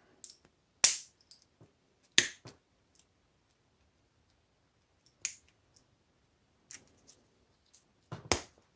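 A handful of sharp, irregular clicks and snaps of hand tools on small metal parts as brass pieces are worked out of a washing machine motor.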